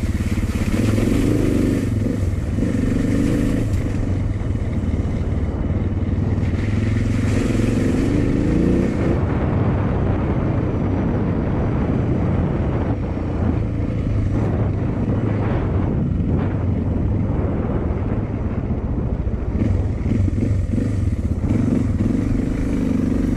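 Suzuki DR650's single-cylinder four-stroke engine running steadily while the bike is ridden along a dirt and gravel track. A rushing noise swells over it near the start and again about eight seconds in.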